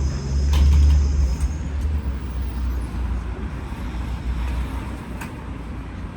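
A motor vehicle passing close on a city street: a deep engine rumble with a thin high whine over it, loudest in the first two seconds, then fading into steady traffic noise.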